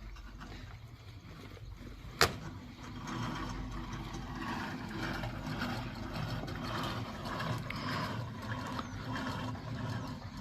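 Construction pulley hoist running, a steady mechanical noise that grows louder about three seconds in, with one sharp clack a little over two seconds in.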